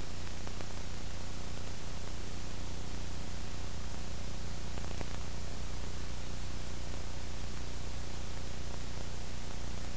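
Steady hiss with a low hum underneath, unchanging throughout: recording noise with no other sound.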